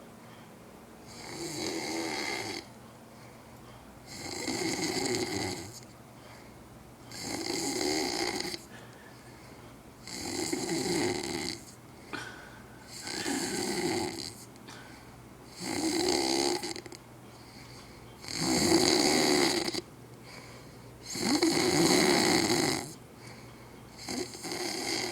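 A man snoring, about nine snores spaced roughly three seconds apart, each lasting a second or so, the two near the end the loudest.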